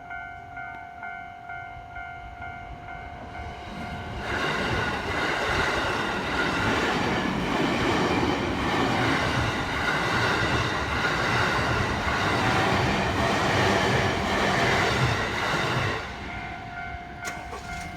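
A level-crossing warning bell rings with a steady repeating ding. About four seconds in, a passing train's rush of wheel and running noise drowns it out for some twelve seconds. As the train clears, the bell can be heard again still ringing.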